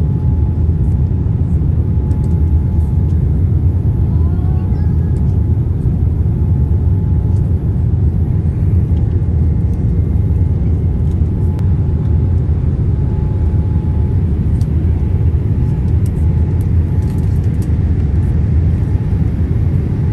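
Steady, loud low rumble inside the cabin of a Boeing 787-8 airliner, with a faint tone that comes and goes.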